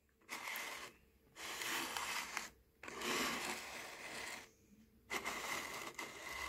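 Wet opal rubs sliding and scraping on the bottom of a plastic tub, in four scraping strokes of one to two seconds each with short pauses between.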